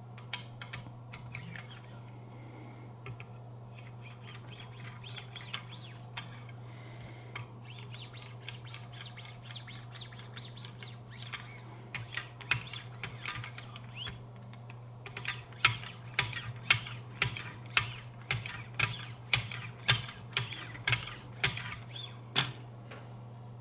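Wicked Edge guided sharpener being worked with fine lapping-film paddles along a knife edge: soft scratchy strokes at first, then a regular run of light clicks about two a second as the arms are stroked back and forth. The final polishing stage with 1 and 0.5 micron film.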